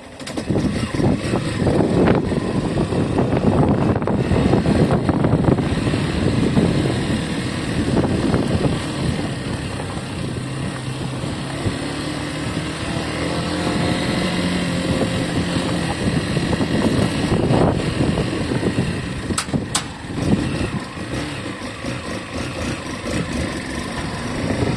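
Yamaha Factor 150 single-cylinder motorcycle being ridden with its stock exhaust and the air-filter box cover fully closed, so the engine note is subdued. A steady rushing noise dominates, and the engine's hum comes through more clearly about halfway through.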